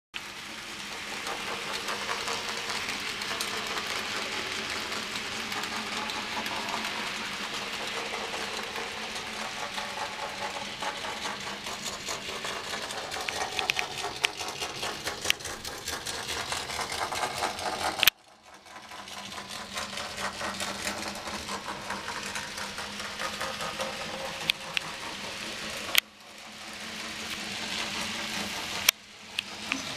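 Model railway locomotive, an Ivatt Class 2MT 2-6-0, running with a rake of coaches: a steady whir from its electric motor and gears, with irregular sharp clicks from the wheels on the track. The sound drops out suddenly three times, the first about two-thirds of the way through.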